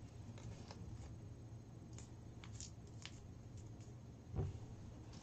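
Small paper lottery slip being handled and folded by hand: faint scattered crinkles and clicks, with a soft low thump about four seconds in.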